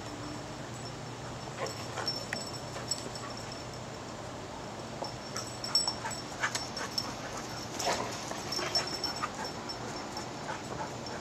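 Two dogs, a black Labrador-type and a reddish long-haired dog, play-fighting: short dog vocal sounds and scuffles come in scattered bursts, busiest around the middle.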